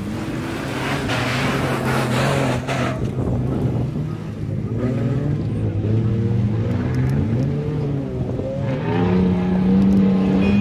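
Off-road 4x4 race vehicles' engines revving hard, the pitch rising and falling with the throttle. In the first few seconds a vehicle passes close with a rush of tyre and dirt noise, and the engine note climbs highest near the end.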